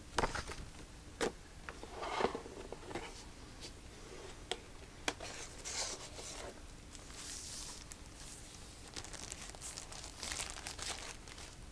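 Paper-and-cardboard packaging handled with scattered light taps and clicks, then a thin protective wrap crinkling and rustling as it is peeled back off a new tablet in the second half.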